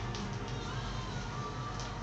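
Vinyl single playing on a Philips AG1016 turntable, the music quiet as the song fades out, with surface clicks and a steady low hum underneath.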